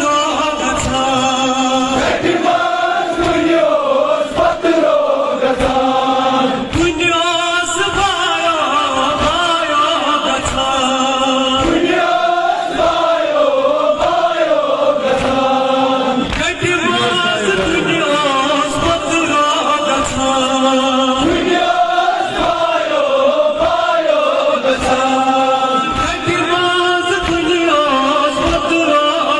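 A crowd of men chanting a nauha, a Shia mourning elegy, in unison behind a lead reciter on a microphone, sung through a loudspeaker. A steady rhythm of sharp beats runs under the singing, the chest-beating (matam) of the mourners.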